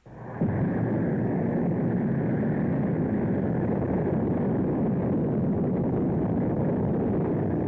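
Atlas-Agena rocket engines igniting at liftoff: the noise comes in suddenly, reaches full strength about half a second in, then holds as a steady loud rumble.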